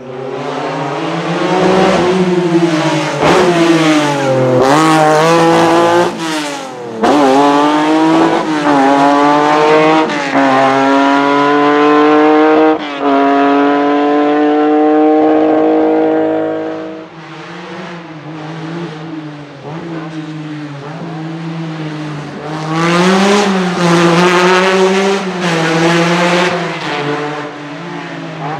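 Lancia Stratos HF Group 4's mid-mounted Ferrari Dino V6 revving hard under acceleration. The pitch climbs and drops back at each quick upshift, then climbs in one long pull before cutting off. After a quieter stretch it revs hard through the gears again near the end.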